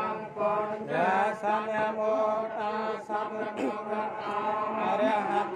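Funeral chanting: a voice chanting in long, wavering held notes that slide in pitch, over a steady low hum.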